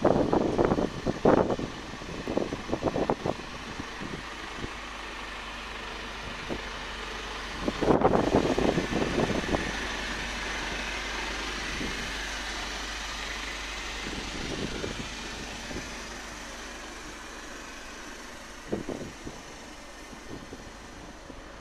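Mercedes-Benz heavy truck's diesel engine, converted to run on CNG and diesel dual fuel, idling steadily, with wind buffeting the microphone in gusts at the start and again about eight seconds in.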